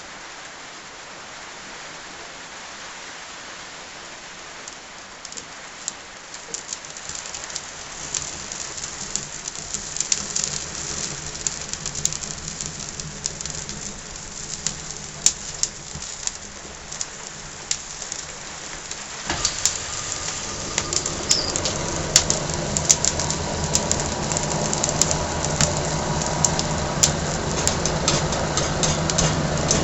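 Coal forge fire lit with straw, crackling and popping more and more densely as it catches. About two-thirds of the way through, a steady low mechanical hum starts suddenly and runs under the crackling fire.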